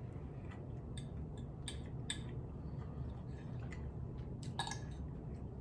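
A few light clicks and clinks of kitchen items being handled, over a steady low hum.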